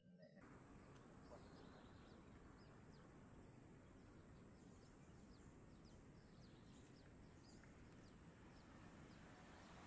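Faint swamp ambience: a steady high-pitched insect drone with many short, quick falling bird chirps scattered through it.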